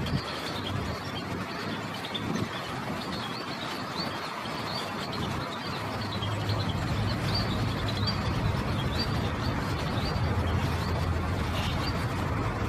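Lesser whistling ducks and their ducklings calling: many short, high chirping whistles repeated throughout. Under them runs a steady low rumble that gets stronger about halfway through.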